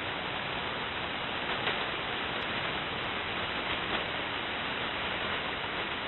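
Steady hiss of shortwave radio static from KiwiSDR software-defined receivers in upper sideband mode, with no voice on the channel.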